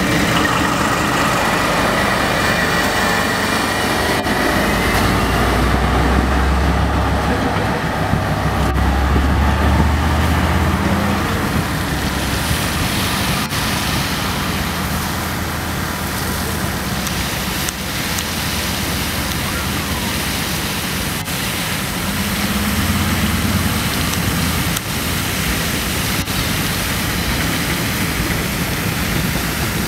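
DL-class diesel-electric locomotive passing, its engine a low drone for the first ten seconds or so, then container wagons rolling by with wheels clicking over rail joints, all under a steady hiss of water jetting from a burst pipe onto the train.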